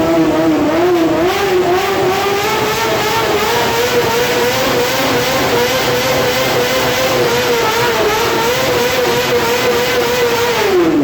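Yamaha R6 sport bike's inline-four engine revving hard: the revs climb and waver for the first few seconds, then hold at a high, steady pitch, and drop away sharply right at the end.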